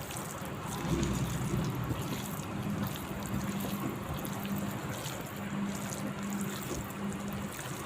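Water trickling and dripping steadily, as from washed boneless chicken draining, over a faint steady hum.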